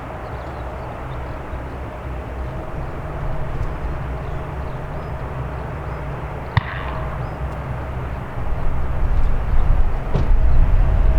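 Boeing 737-800 jet engines on landing approach: a steady low rumble with a faint steady whine, growing louder after about eight seconds as the airliner comes closer. A single sharp click a little past halfway.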